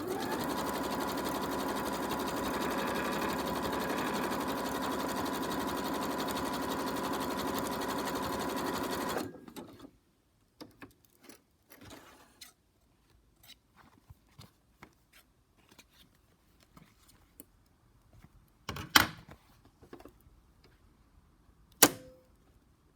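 Electric sewing machine stitching through fabric at a steady speed for about nine seconds, then stopping abruptly. Faint handling noises follow, with two sharp clicks near the end.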